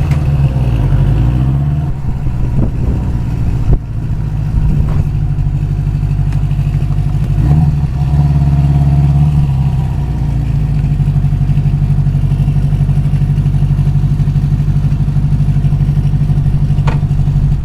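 Air-cooled inline four-cylinder engine of a 1973 Honda CB350 Four motorcycle running on a ride, its engine speed shifting over the first several seconds and then settling into a steady, even note. There is a single sharp click about four seconds in.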